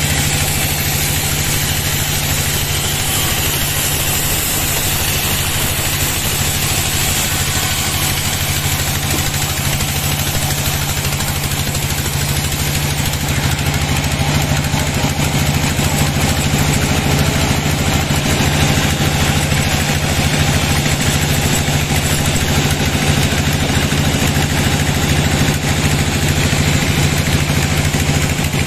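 Sawmill band saw running and cutting lengthwise through a log: a steady low hum from the drive under the noisy hiss of the blade in the wood, getting a little louder about halfway through.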